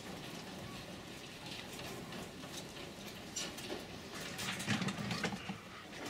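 Caged mink moving about on wire mesh: irregular clicks, scrapes and light rattles of the cage wire, with a cluster of louder knocks about four to five seconds in.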